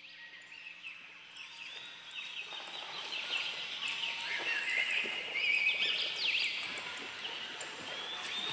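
Tropical rainforest ambience: a dense chorus of many birds chirping and trilling over one another, coming in after silence and growing louder over the first few seconds.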